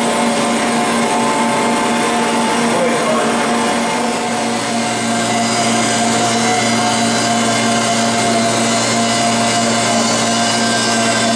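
Steady machine hum, a mix of several steady tones over a noisy whir, from a running machine tool's motors and pumps; a deeper hum joins at about four and a half seconds.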